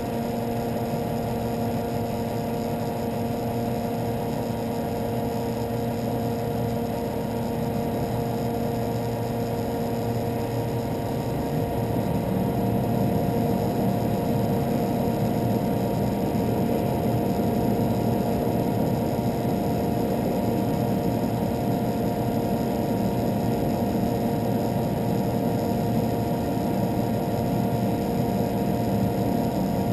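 A parked van's engine running at idle, a steady hum carrying several constant tones, growing slightly louder and deeper about twelve seconds in.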